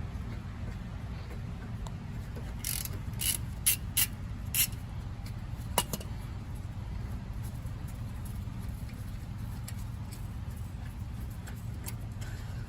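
Brake caliper bolts being worked loose and removed with a 14 mm wrench: a few short metallic clicks and scrapes about three to four seconds in and one sharp click near six seconds, over a steady low hum.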